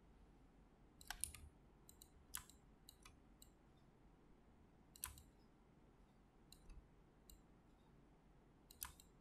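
Computer mouse clicking: a handful of short, sharp clicks at irregular intervals, a second or more apart, over faint room tone.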